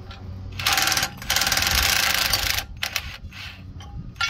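Cordless impact driver hammering bolts loose on a planter row unit: a short burst, then a longer one lasting about a second and a half, followed by a few small clicks.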